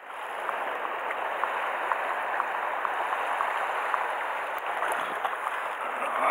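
Sea water washing and lapping against shore rocks: a steady wash of noise with small splashy ticks scattered through it.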